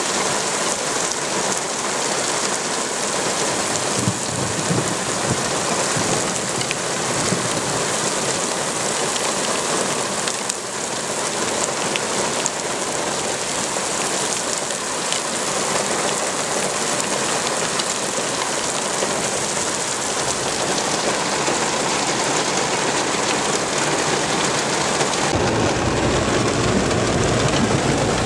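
Heavy downpour: steady, dense rain hiss throughout. About 25 seconds in, the sound turns deeper and duller.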